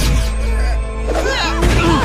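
Cartoon soundtrack: dramatic orchestral music with a sudden crash at the start, then several wavering, pitch-bending cries layered over the score.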